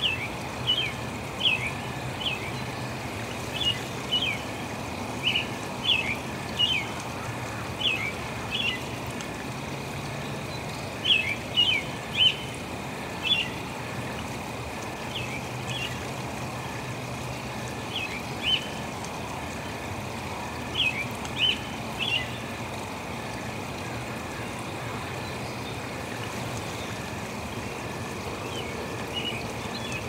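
Running water with a steady hiss and a faint high steady tone underneath, while a bird calls in short, sharp chirps, often two or three close together. The chirps come every second or so, are loudest around the middle and thin out after about two-thirds of the way.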